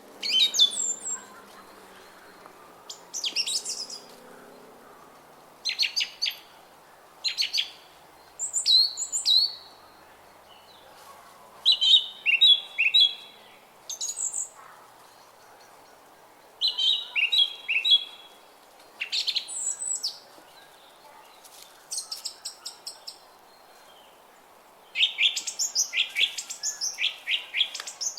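Songbirds singing in short, high-pitched phrases and quick trills, one phrase every second or two, over a faint, steady background hiss.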